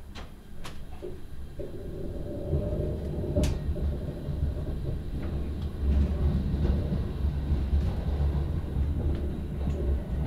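Commuter train pulling away from a station, heard from inside the carriage: a low running rumble that builds as the train gathers speed, with a steady tone for a couple of seconds and a few short clicks.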